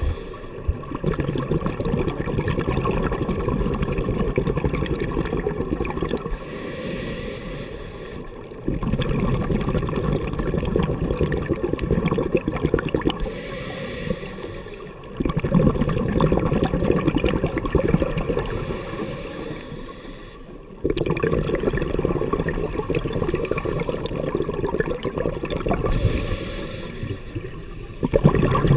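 Scuba diver breathing through a regulator underwater: a short hiss on each inhale, then a long, louder rush of bubbling exhaled air, about four breaths in a slow, regular cycle.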